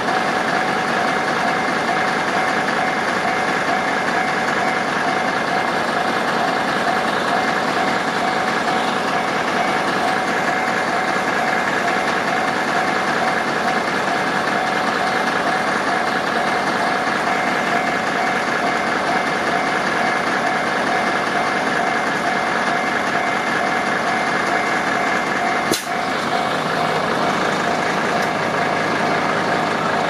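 Japanese railway level-crossing alarm ringing continuously with its repeating electronic clang while the warning lights flash, over a vehicle engine idling close by. A click about 26 seconds in, after which a low hum joins.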